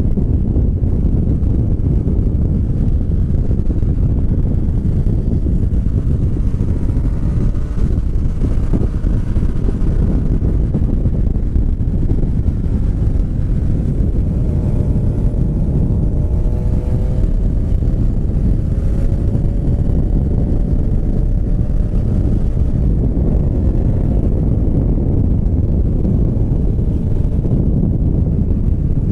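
Wind buffeting the microphone on a Yamaha MT motorcycle cruising at about 80–100 km/h, a steady low rush. The engine's note sits faintly beneath it, gliding slowly up and down in pitch through the middle.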